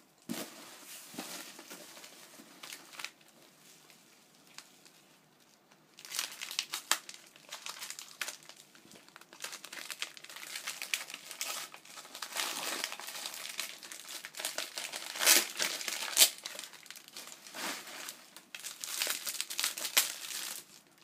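Wrapping being handled and pulled open: crinkling and crackling packaging, faint at first, then busy and continuous from about six seconds in, with a few sharper loud crackles.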